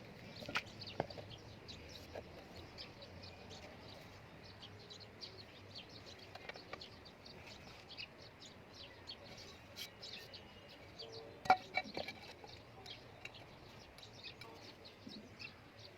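Faint small birds chirping repeatedly in the background, with a few light knocks, the loudest a short cluster about two-thirds of the way through.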